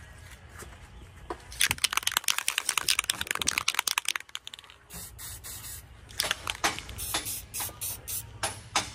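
Rust-Oleum spray paint can being shaken, its mixing ball rattling rapidly for about two seconds. A run of slower, separate rattling strokes follows in the second half.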